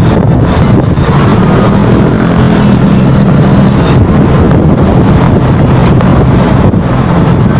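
Motorcycle engine running steadily under loud wind rushing over the microphone while riding.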